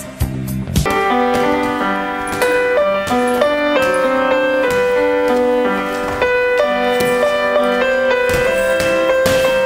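Background music: a pop track with a beat cuts off under a second in, and slow piano music with held notes takes over.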